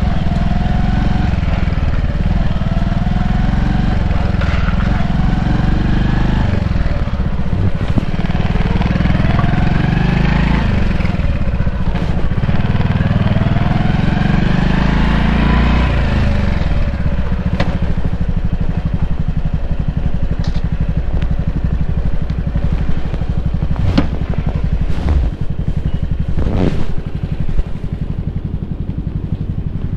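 Honda Cross Cub 110's single-cylinder four-stroke engine running at low speed, rising and falling in pitch as it pulls away and changes gear over the first half or so, then settling to a steady idle. A few sharp clicks come near the end.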